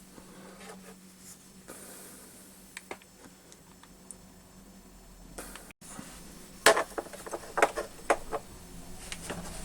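Sharp clicks and knocks of small metal parts being handled and set down on a workbench, in a quick cluster of about half a dozen in the second half, over a steady low hum.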